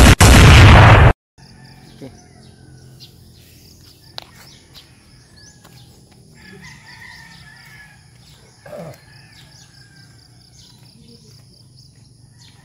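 A very loud rushing burst of noise cuts off about a second in. Then quiet rural morning ambience: a rooster crowing at a distance, a louder crow about nine seconds in, small birds chirping, and a steady high insect buzz.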